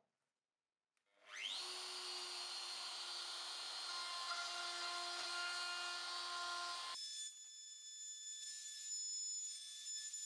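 An electric power tool's motor spins up about a second in, with a quick rising whine, then runs at steady speed. About seven seconds in the sound changes abruptly to a thinner, high-pitched steady whine.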